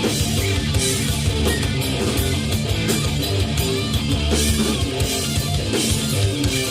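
Live heavy metal band playing an instrumental passage: distorted electric guitars, bass and a drum kit with cymbals, driving along at a steady pace.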